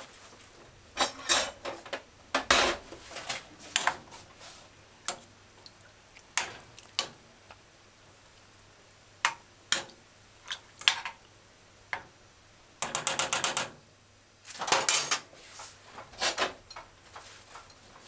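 Metal ladle knocking and clinking against a stainless steel saucepan of water and oxtail: scattered sharp clinks, with a quick run of about ten clicks in a second about two-thirds of the way through.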